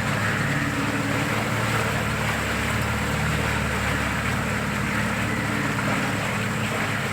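Motorboat engine running steadily: an even low hum with a constant rush of noise over it.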